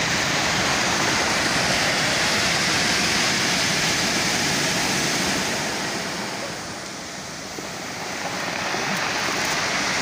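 Sea surf breaking over rocks and a pebble shore, a steady rushing wash that eases a little about seven seconds in.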